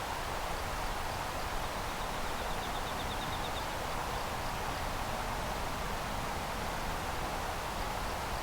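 Steady rushing outdoor background noise, with a faint, fast, high trill for a couple of seconds about two seconds in.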